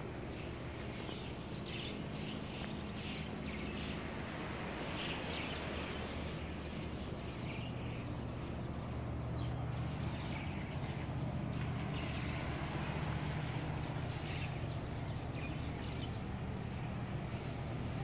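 Outdoor ambience: scattered short bird chirps over a steady low machine hum that grows a little louder about halfway through.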